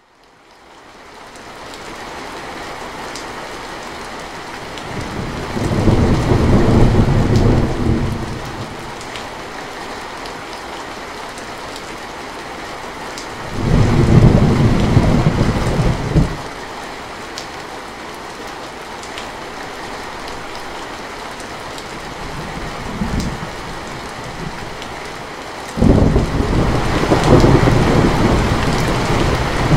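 Heavy rain on a metal roof fading in at the start, with thunder rolling through it: a rumble about five seconds in, another around fourteen seconds, a brief one near twenty-three seconds, and a longer roll from about twenty-six seconds on.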